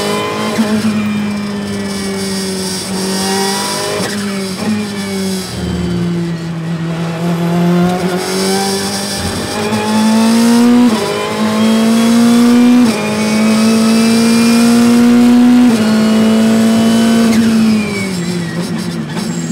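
Ferrari 488 GT Modificata's twin-turbo V8 race engine heard from the cockpit at speed. It eases off through a downshift in the first half, then pulls hard up through the gears with quick upshifts about 11, 13 and 16 seconds in. The note drops as it brakes hard near the end.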